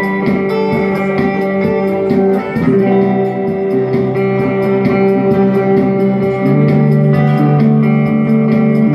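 Electric guitar played live through a combo amplifier: long sustained notes with a brief bend in pitch, over a steady ticking beat.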